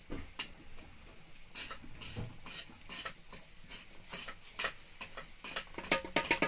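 Hands patting and slapping a ball of roti dough flat between the palms: a run of soft, irregular slaps that quickens to several a second near the end.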